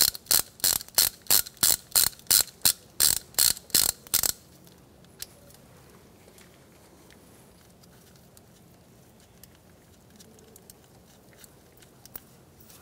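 Hand socket ratchet clicking steadily, about three clicks a second, as it backs out the ABS wheel speed sensor's E6 inverted Torx bolt; the clicking stops a little over four seconds in, leaving only faint light ticks as the loosened bolt is turned out by hand.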